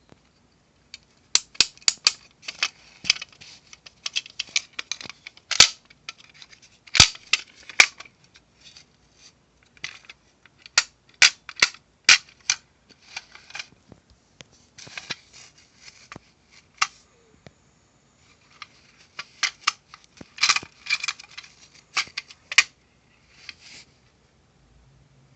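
Rapid, irregular clicking and clacking of hard objects being handled, in quick clusters with a few short pauses.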